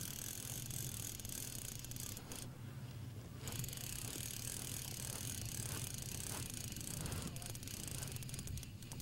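Spinning reel being cranked with a light mechanical whirr and clicking as a hooked fish is reeled in against the weight of the current, over a steady low hum.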